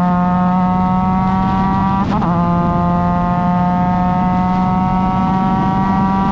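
Formula Mazda race car's Mazda rotary engine running hard under load, its pitch climbing slowly and steadily, with a brief jolt in the sound about two seconds in.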